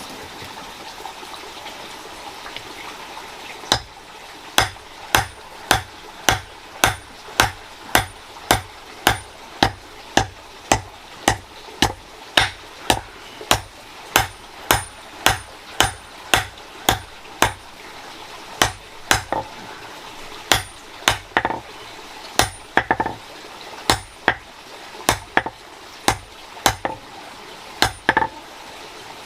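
Hammer blows on iron at a steady pace of about three every two seconds, each a sharp ringing clang, starting about four seconds in with a few short pauses: hand-forging a tool from smelted iron. A steady rush of water runs underneath.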